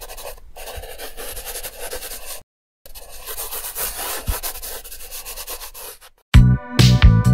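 Colored pencil rubbing on paper in rapid back-and-forth shading strokes, broken by a brief silence about two and a half seconds in. Loud music with a beat comes in near the end.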